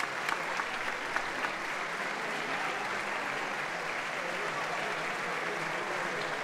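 A concert audience applauding. Single claps stand out in the first second or so, then the clapping settles into a dense, steady applause.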